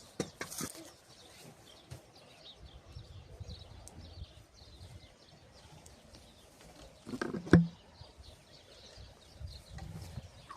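Outdoor ambience with faint bird chirps and a few knocks and thuds, the loudest about seven and a half seconds in.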